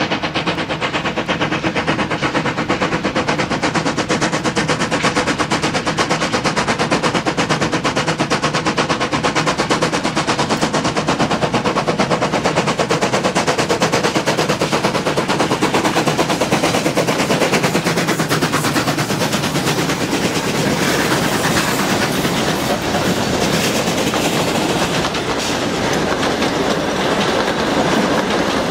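Two steam locomotives, NM25 and W22, double-heading a train past at speed, their exhausts chuffing in a fast, steady rapid-fire beat. Near the end the carriages begin rolling past.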